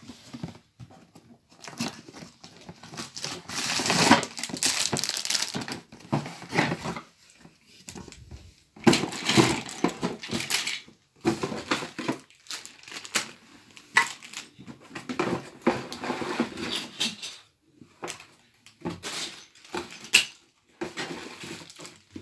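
A Playmobil City Life cardboard box being opened and emptied by hand: irregular bouts of crinkling and rustling from cardboard and plastic parts bags, with a few sharper clicks of plastic pieces.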